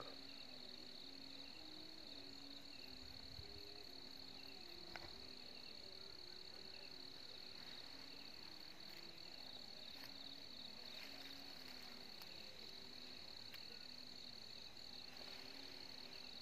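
Faint, steady, unbroken high trill of a cricket in night-time grass.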